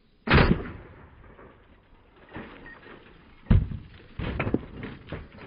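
12-gauge shotgun shots with a slug hitting a block of ballistic gel: a sharp, loud report about a third of a second in, another about three seconds later, then a quick run of knocks and thuds as pieces land.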